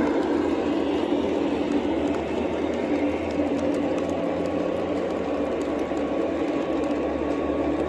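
Lionel O gauge model trains running on three-rail track: a steady running noise of metal wheels on the rails and the locomotives' motors.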